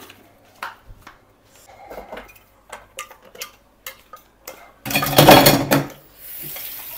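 Plastic serving spoon tapping and scraping against a glass bowl and plastic food containers as chopped fruit salad is spooned out, with scattered light clicks. About five seconds in, a louder clatter lasting about a second as the bowl is tipped and the last fruit is scraped out.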